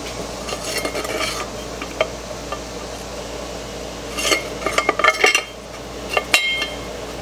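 Steel flex plate clinking and scraping against the torque converter as it is turned by hand to line up the bolt holes: light metal clinks in two clusters, with two sharp clinks near the end.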